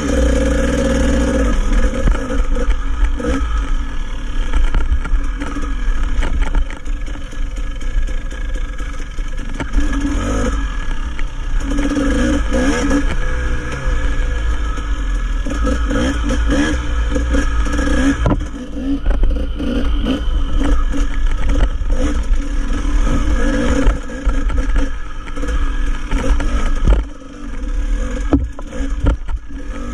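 Enduro dirt bike engine running as the bike is ridden along a rough trail, its revs rising and falling with the throttle, with rattling and knocks from the bike over the rocky ground.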